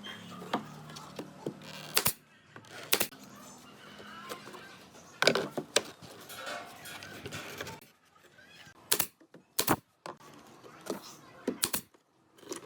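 Irregular sharp knocks and taps on wood, about a dozen, with faint voices between them.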